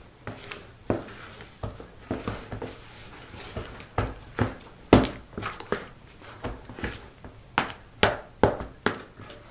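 Soft, sticky yeast dough being kneaded by hand in a plastic bowl: irregular squelches and slaps of hand and dough against the bowl, one or two a second, the loudest about halfway through.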